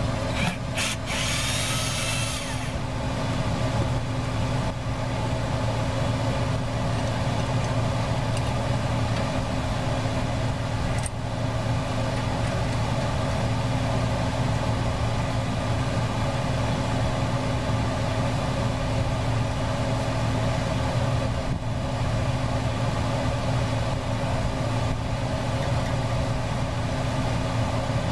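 Portable fan running with a steady hum. A few sharp clicks and a short hiss in the first two seconds or so.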